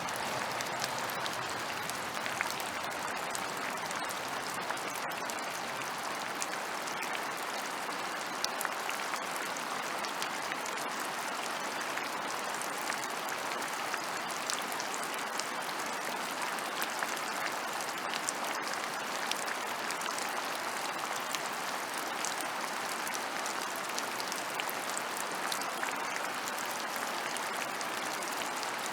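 Steady rain falling on open ground, a continuous even hiss dotted with many small drop ticks.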